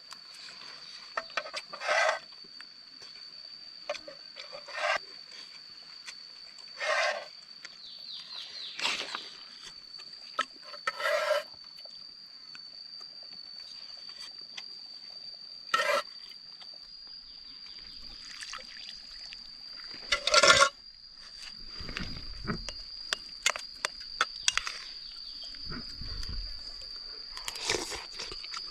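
A steady high-pitched insect drone, with scattered short clinks, knocks and scrapes of utensils and dishes from a meal being eaten.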